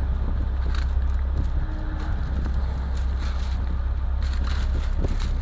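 Steady low hum, with a few light clicks and taps as thin wooden deck-plank strips are handled.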